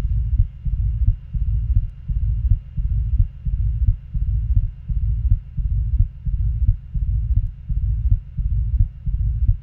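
Recorded heart sounds in a regular rhythm: each S1 is followed closely by S2 with no murmur between them, then a murmur fills the pause after S2 until the next S1, a diastolic murmur.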